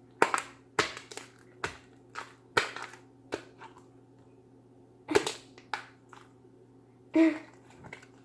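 Sticky, stringy fluffy slime being kneaded and pulled apart by hand, giving irregular sharp pops and smacks, about a dozen of them with a quiet gap in the middle.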